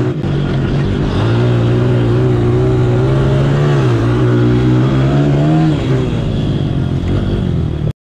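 Small single-cylinder pit bike engine running hard at high revs, holding a fairly steady note with small rises and dips. It cuts off suddenly just before the end.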